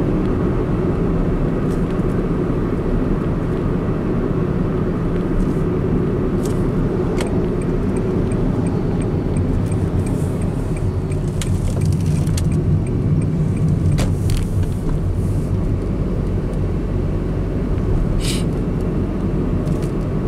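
Honda N-One Premium Tourer kei car driving, with the steady engine and road noise heard from inside the cabin. A light, quick ticking comes in for a few seconds in the middle.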